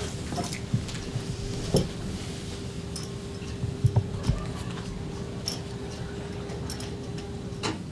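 Audience settling in a small cinema auditorium: scattered small knocks, clicks and seat or body movements, with a few low thumps around the middle. A steady faint hum runs underneath and cuts off suddenly near the end.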